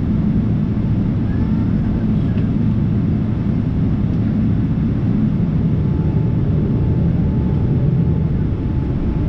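Steady low rumble of a Boeing 777-300's jet engines heard from inside the cabin as the airliner taxis, with a faint thin whine joining a little past halfway.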